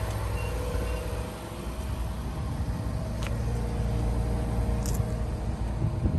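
2017 Infiniti Q50 Sport idling steadily, its low exhaust rumble heard from behind the car near the twin exhaust tips, with a couple of faint light clicks.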